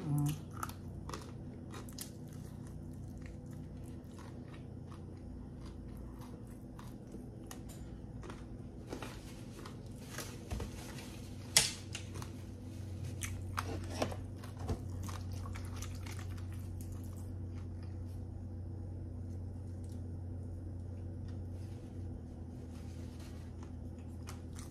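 Close-miked chewing of sauced fried chicken wing, closed-mouth: irregular small wet mouth clicks, with one sharper click a little before the middle, over a low steady hum.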